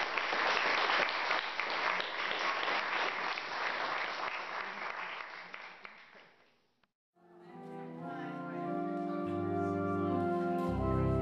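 Congregation applauding, the clapping dying away over about six seconds. After a brief silence, instrumental music with long held chords fades in, a bass line joining near the end.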